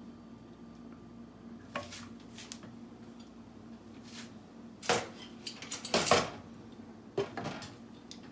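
Ladle knocking and scraping against a cooking pot and a ceramic plate as bean stew is served: scattered clinks, the loudest about five and six seconds in. A low steady hum runs underneath.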